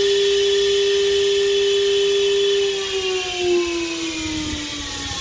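CNC router spindle running with a steady high whine, then slowing down, its pitch falling gradually from about three seconds in.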